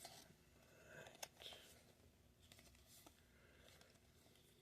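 Near silence, with a few faint clicks and rustles of trading cards being handled.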